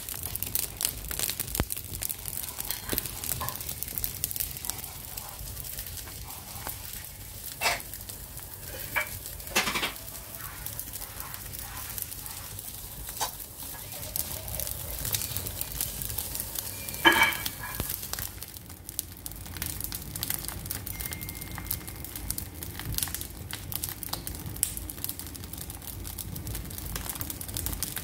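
Open fireplace fire crackling and sizzling steadily as wood logs and a pair of trail running shoes burn, with a few louder pops, the loudest about two-thirds of the way through.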